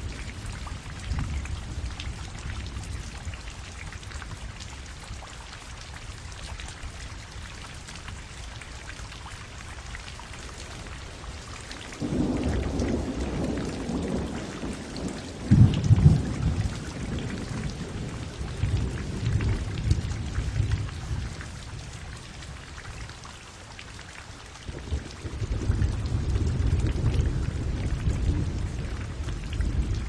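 Steady rain with rolling thunder. A deep rumble starts abruptly about twelve seconds in and swells to its loudest a few seconds later, and another rumble rolls in near the end.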